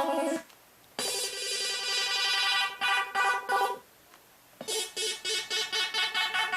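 Electronic sound-effects synthesizer circuit playing electronic tones: a steady tone cut off, a pause, a steady tone that breaks into a warble, another pause, then a rapid beeping at about four beeps a second.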